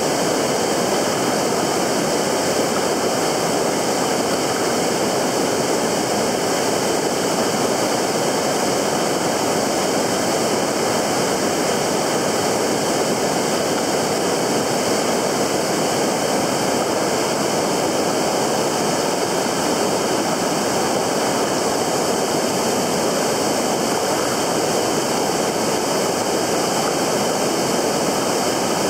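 Steady rush of fast-flowing river water, an even noise without breaks.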